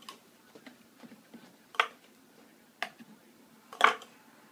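A spoon knocking and clicking against a red plastic bowl as a toddler stirs. There are several light taps, then three sharper clacks about a second apart in the second half, the last one the loudest.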